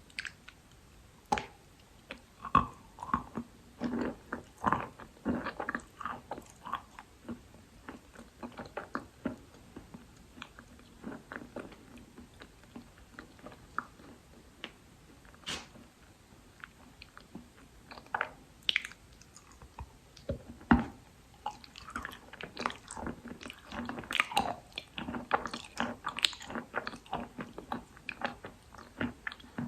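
A person biting and chewing Khrapovsky chalk: irregular crunchy bites and crumbly chewing, with one sharp, loud bite about two-thirds of the way through and quicker, denser chewing after it.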